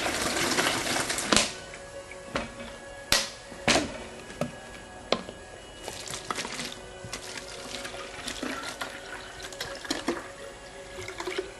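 Water gushing for about the first second and a half, then a series of sharp clanks and knocks, with music.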